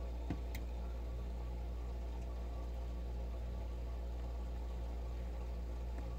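Steady low electrical hum with a faint hiss, and a short click about a third of a second in.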